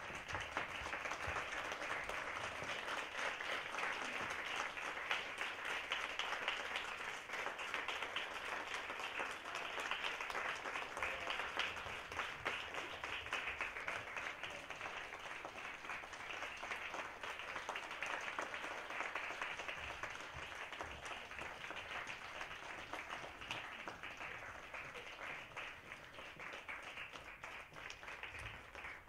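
Theatre audience applauding at a curtain call: dense, steady clapping that eases off a little toward the end.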